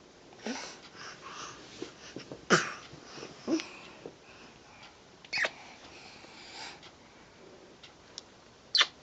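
A handful of short, sharp coughs spaced a second or more apart, the loudest about two and a half seconds in and just before the end: Ally's asthmatic cough.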